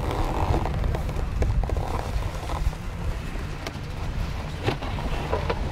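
Wind rumbling on the microphone, with scattered light knocks and scuffs as the removed plastic hood of a snowmobile is handled and set down.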